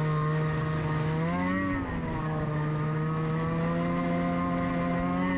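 Snowmobile engine running at cruising speed, heard from on board the machine. About a second and a half in it revs up briefly and drops back, then holds steady and slowly climbs again.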